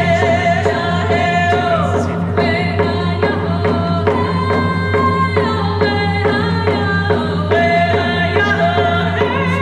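Two women singing a Native American song together, accompanied by their hand-held frame drums struck with beaters.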